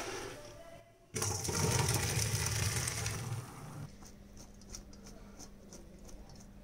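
Hot water and boiled papaya cubes poured from a pan into a steel colander in a sink, splashing and draining for about three seconds, starting about a second in. After that, only a faint steady hum with a few light ticks.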